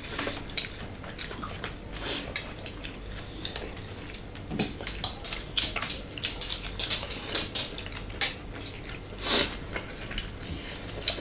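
Close-up eating sounds: irregular crisp crunches and wet chewing of fresh lettuce and cucumber salad, with occasional clicks of fingers and food against ceramic bowls and plates.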